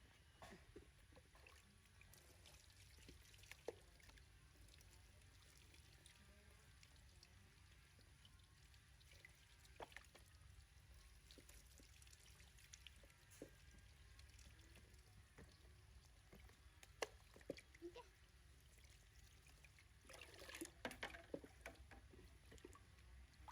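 Near silence: low room hum with scattered faint clicks, and a short stretch of rustling near the end.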